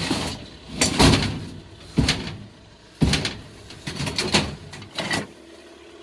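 A series of loud clunks and bangs, about one a second, each dying away quickly, over a low background hum.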